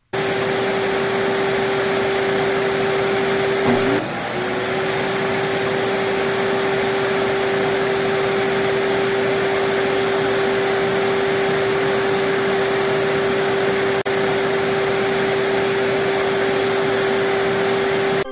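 Vacuum cleaner switched on and running: a steady rushing whine. About four seconds in, the tone briefly dips in pitch and recovers, as the hose nozzle is pressed against the skin.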